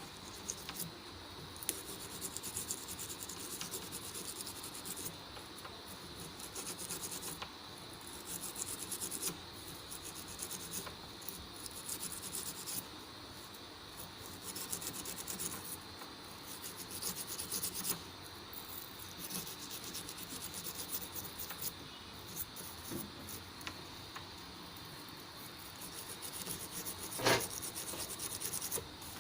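Repeated scraping or rubbing strokes in bursts of a second or two, with a sharp click near the end.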